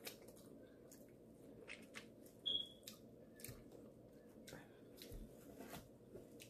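Quiet chewing and small wet mouth clicks while eating crab, over a low steady room hum, with one brief high-pitched squeak about two and a half seconds in.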